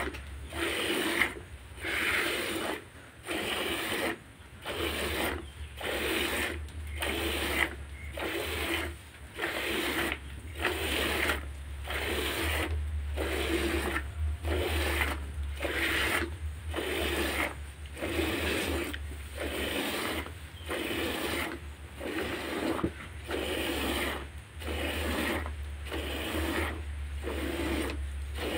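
Cow being milked by hand into a plastic bucket: streams of milk squirting from the teats into the milk already in the pail, in a steady rhythm of short hissing squirts about once every three-quarters of a second.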